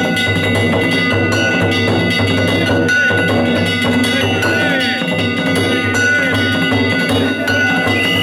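Danjiri festival music (narimono): taiko drums beaten with clanging hand gongs, with steady high ringing tones held over the beat.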